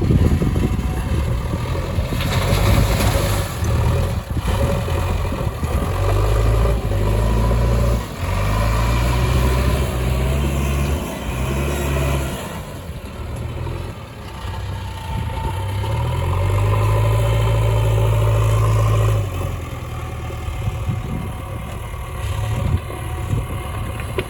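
Heavy diesel machinery engine working, revving up and down under load, holding high revs for a few seconds before dropping back to a lower, quieter run near the end.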